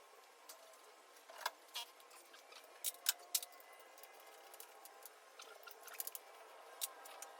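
Scattered light metallic clicks and clinks of hand tools at work on the engine bay during a six-cylinder engine removal, with a small cluster about three seconds in, over a faint steady hum.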